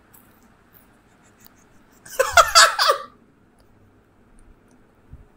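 A man's short burst of laughter, about a second long, about two seconds in; otherwise low room sound.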